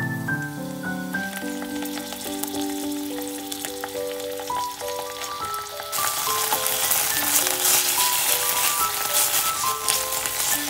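Anchovy fillets and sliced garlic sizzling in hot olive oil in a stainless steel frying pan as the anchovies are pressed with a wooden spoon to melt into the oil; the sizzling grows much louder about six seconds in. A light background melody of short notes plays throughout.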